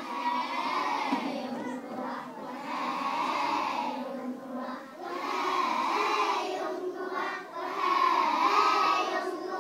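A large group of reception-age young children singing together in unison, in long phrases with a short break about halfway through.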